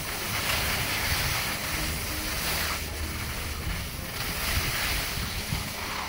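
Wind buffeting the phone's microphone outdoors: a rushing noise with a low rumble that swells and eases in gusts.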